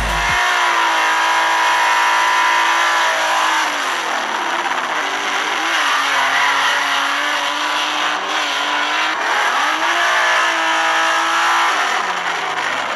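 Chevrolet Opala drag car's engine revved and held at a steady high speed, dropping back at about four seconds and running at a lower steady speed. It is revved up again about ten seconds in, held, and falls off near the end.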